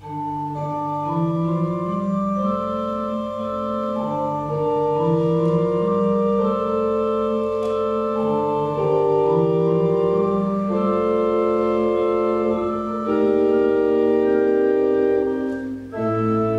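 Church organ playing the introduction to a hymn: held chords with a slowly moving melody line. Just before the end it breaks off for a moment and comes back in with a louder, fuller chord over a deep pedal bass.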